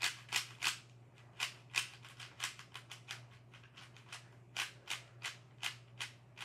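Plastic speed cube being turned by hand: a run of sharp clicks as its layers snap round, irregular, about three a second.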